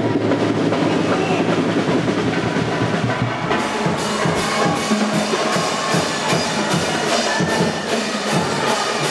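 Drumming with a steady beat of about three strokes a second, starting about three and a half seconds in, over a continuous din.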